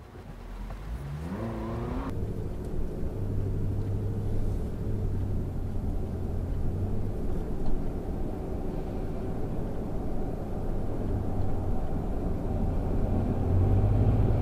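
A vehicle engine revs up quickly about a second in as traffic pulls away from a standstill. Then a steady low rumble of engine and tyre noise follows as the car drives alongside a heavy container truck, growing a little louder near the end.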